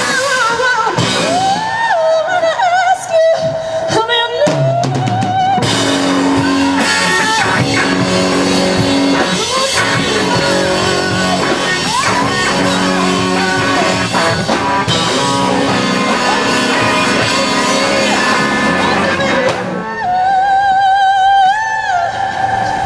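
Live rock band with electric guitars, bass and drum kit playing a blues-rock song, amplified through a small PA. A lead line is held with a wide vibrato near the start and again near the end, with the full band between.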